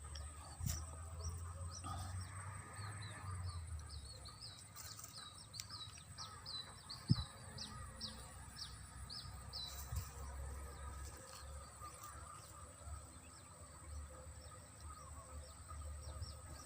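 A bird calling outdoors in a fast run of short, high chirps for several seconds, then falling silent, over a faint low rumble of wind or handling noise. A single soft knock comes about halfway through.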